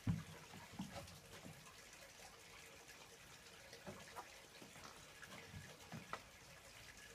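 A cucumber set down on wooden deck boards with a single low thump, followed by faint scattered clicks and soft knocks.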